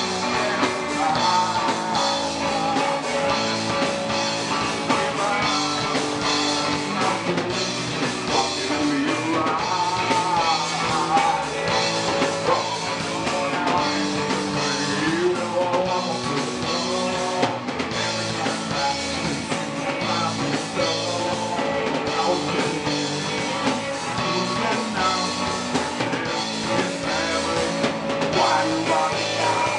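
Punk rock band playing live: electric guitars and a drum kit, loud and steady.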